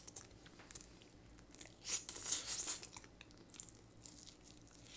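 Close-miked eating of spicy-seasoned steamed flower crab: small cracks and crackles of shell, and biting and chewing as the crab is worked by hand and mouth, with a louder, hissy stretch about two seconds in.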